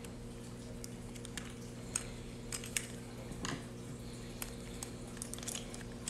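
Small, scattered metallic clicks and ticks of a screwdriver working the screws inside a smart door-lock knob, with the lock's metal parts being handled, over a steady low hum.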